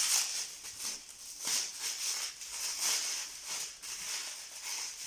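Irregular rustling and crinkling of packaging as the box's contents are handled and unpacked.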